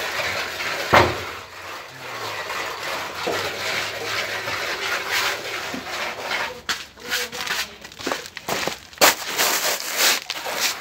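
Plastering tools scraping and rubbing wet scratch render (Reibeputz) on a wall. A steady rasp runs until about six and a half seconds in, then gives way to separate strokes, with a sharp knock about a second in.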